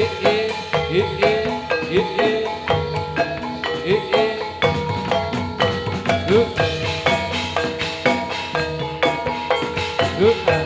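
Javanese gamelan music: bronze metallophones struck in a steady, even pattern, with kendang hand-drum strokes that slide up in pitch.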